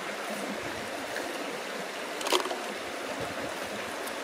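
Small brook flowing steadily, with one short crackle about two seconds in.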